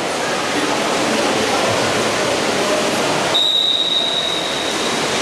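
Steady noise of a water polo game, water splashing with crowd noise, and one long, steady referee's whistle blast starting about three and a half seconds in.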